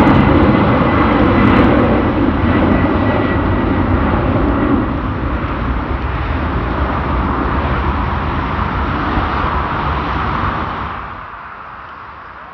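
Jet airliner departing at takeoff thrust, its engines making a loud, steady roar with a faint high whine. The rumble thins after about five seconds, then the sound drops off sharply near the end.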